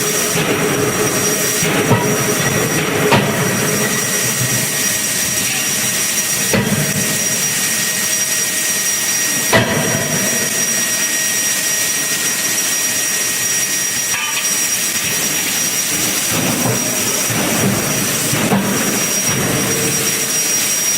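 Forging shop machinery running around a hydraulic die forging hammer: a steady loud hiss and hum with a constant high whine, broken by a few sharp knocks at irregular intervals.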